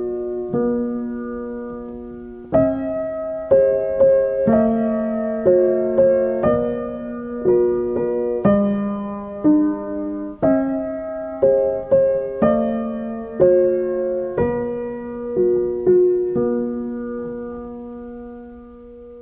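Background solo piano music: a slow piece with notes and chords struck about once a second, each ringing and fading, ending on a held chord that dies away over the last few seconds.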